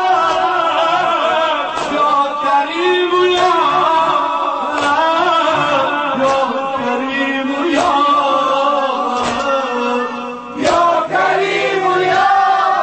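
Male voice chanting an Afghan noha, a Shia mourning lament in Dari, in long held melodic lines, with a sharp beat about every second and a half.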